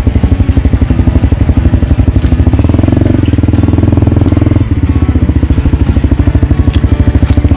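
Enduro dirt bike's engine running at low revs with a rapid, even pulse, the pitch rising and easing off a few times with the throttle.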